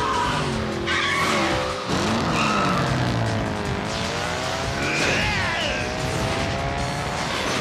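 Cartoon sound effect of a race car engine revving, its pitch rising and falling, with tyres screeching, over background music.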